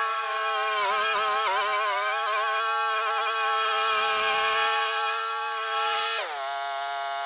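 Scag commercial walk-behind mower running as it cuts through tall, thick grass, with a steady high whine that wavers under the load about a second in. About six seconds in its pitch drops sharply and it holds lower to the end.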